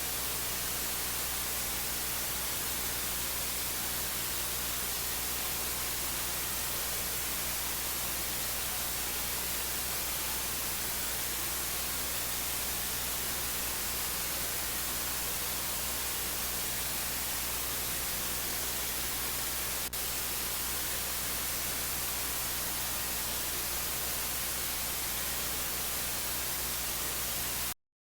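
Steady loud static hiss, like an analog television's off-air noise, over a faint low hum. A single small click about 20 seconds in, and the static cuts off abruptly just before the end.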